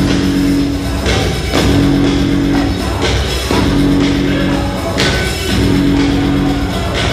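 Upbeat dance music with a steady beat; a held low note comes back about every two seconds.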